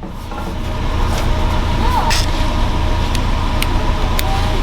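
Nissan Frontier pickup's engine running at a steady idle, with a few sharp clicks over it.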